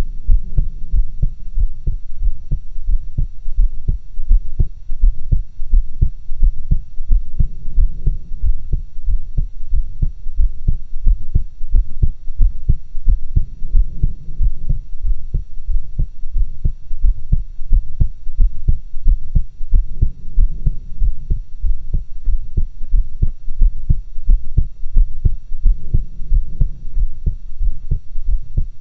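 A woman's heart beating, picked up through stethoscopes: steady, regular low thumps.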